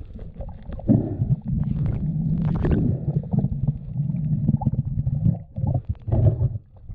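Muffled, irregular low rumbling and crackling of water, as picked up through an action camera's waterproof housing while swimming in the sea.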